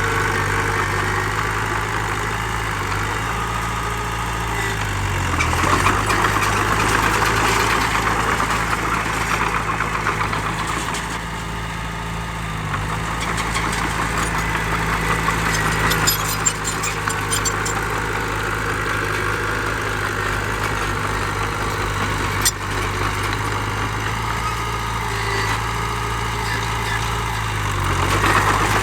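Heavy diesel engine of earthmoving machinery running steadily, its note shifting a few times as the load changes, with swells of rougher clattering noise and one sharp knock about three-quarters of the way through.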